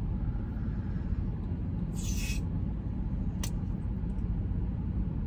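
Steady low rumble inside a running car's cabin, with a short hiss about two seconds in and a single sharp click about three and a half seconds in, as the plastic opener is pressed down on a marble-soda bottle whose marble has not yet dropped.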